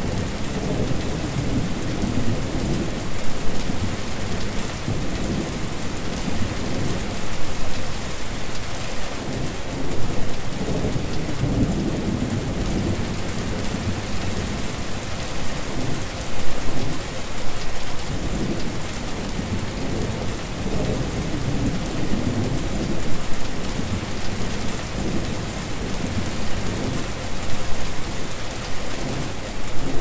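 Steady rain falling and splashing on a wet surface. It is a continuous hiss with a heavier low-pitched patter that swells slightly now and then.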